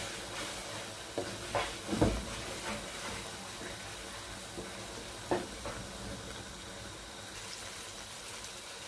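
Semolina-and-milk halwa mixture sizzling in hot oil in a non-stick kadai while a spoon stirs it fast, with a few knocks of the spoon against the pan, the loudest about two seconds in and another about five seconds in.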